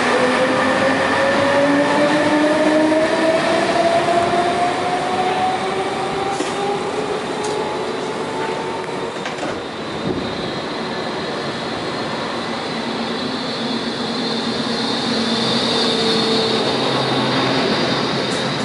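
SBB electric locomotive and its double-deck coaches moving through the station, with a motor whine climbing steadily in pitch as the train gathers speed. About ten seconds in, the sound changes to a double-deck electric multiple unit running along the platform, with a high squeal that lasts almost to the end.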